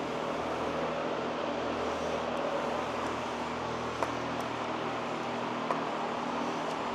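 Steady mechanical hum in the shop, with two light clicks about four and six seconds in as the timing chain and intake cam sprocket of a GM Ecotec engine are handled.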